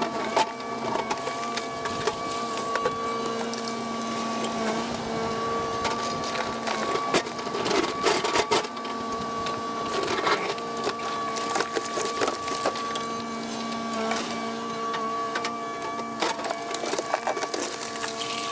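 Kubota KX080 excavator running with a steady mechanical whine as its bucket digs and dumps dirt and broken concrete, with several knocks and crunches around the middle.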